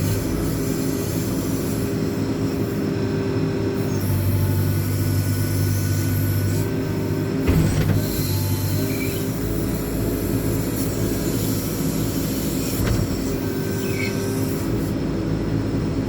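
JCB 4CX backhoe loader's diesel engine running under hydraulic load while the rear backhoe boom works. The engine note swells for a few seconds in the middle, and there is a sharp metallic clank about seven and a half seconds in and a lighter knock about thirteen seconds in.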